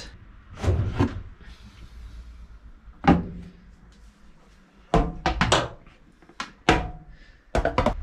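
Plastic agitator from a Fisher & Paykel SmartDrive washing machine knocking against the drum and a steel sink as it is lifted out and set down: a string of hollow knocks and clunks, the sharpest about three seconds in and a quick cluster about two seconds later.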